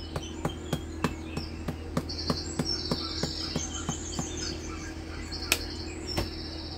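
Pepper being applied to raw shrimp: an even series of small sharp clicks, about three a second, with one louder click about five and a half seconds in.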